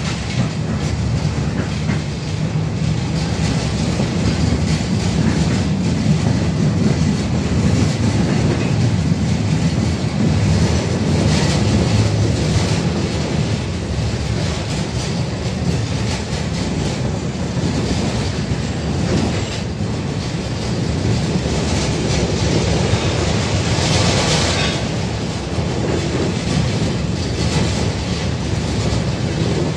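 A 71-605A (KTM-5) tram heard from inside the passenger car while running: a steady low rumble of wheels on rails and running gear. A short, brighter burst of higher-pitched noise comes about three-quarters of the way through.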